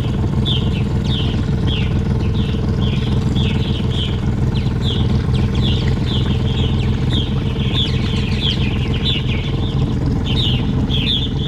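A boat's engine running steadily at low cruising speed, an even hum, with high chirps repeating about twice a second above it.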